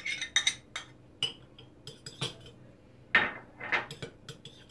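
A metal spoon clinking and scraping against glass bowls as yogurt is spooned out of a small glass bowl into a larger glass bowl. Scattered sharp clinks, with two longer scrapes about three seconds in.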